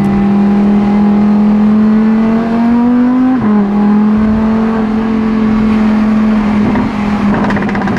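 Lamborghini Huracán's V10 engine pulling under acceleration, its pitch rising steadily, dropping suddenly about three and a half seconds in at an upshift, then climbing again.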